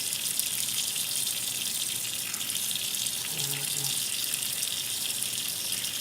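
Water running steadily from a tap into a sink during handwashing.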